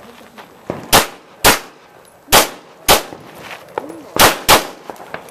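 Handgun fired in three quick pairs, six shots in all, with short pauses between pairs, plus fainter clanks between the shots.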